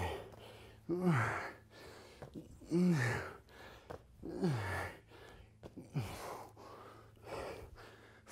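A man breathing out hard with effort, a voiced exhalation about every one and a half seconds, each one falling in pitch, one per repetition of a strenuous exercise.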